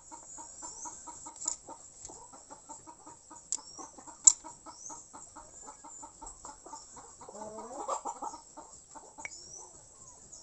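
Chickens clucking in a quick, even run of short notes, with thin high chirps over them and a louder, longer call near eight seconds in. A single sharp click about four seconds in.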